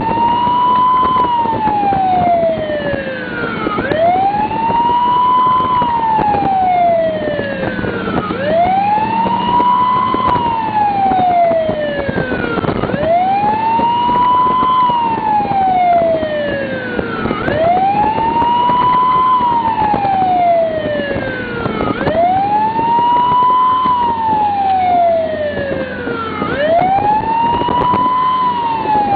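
Emergency vehicle siren on an electronic Q (EQ) setting, in a repeating wail: each cycle rises quickly, then winds down slowly, about every four and a half seconds, seven times.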